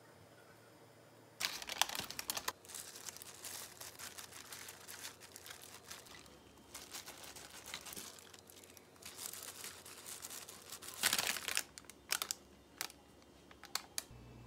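Disposable plastic glove and paper liner crinkling in irregular bursts as egg wash is spread by hand over bread pastries, with a few sharp clicks near the end.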